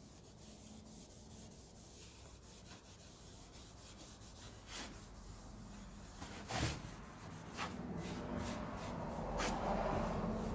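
Foam brush and rag rubbing oil into a walnut board, a soft scrubbing that grows louder over the second half, with a few sharp clicks.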